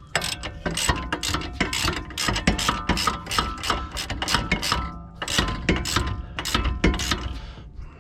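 Hand ratchet clicking rapidly as a 17 mm socket runs a nut down onto a rear strut's mounting bolt, with a short pause about five seconds in.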